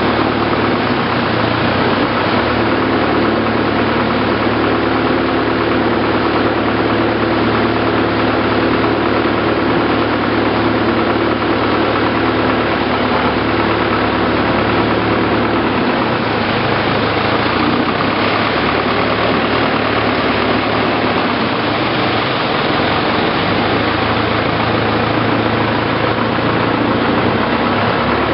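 Long-tail boat's engine running steadily and loud while the boat is under way, a constant low hum over a dense rushing noise.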